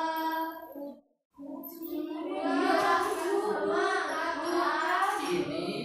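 A group of voices singing together, classroom-style. The sound cuts out for a moment about a second in, then the group singing resumes fuller.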